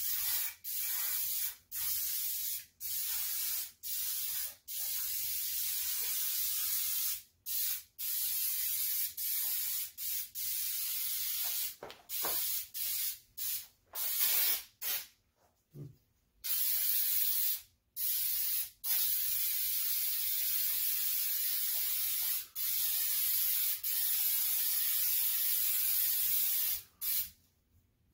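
Aerosol can of Gunk heavy-duty engine degreaser gel spraying with a hiss, in many separate blasts, some short and some several seconds long.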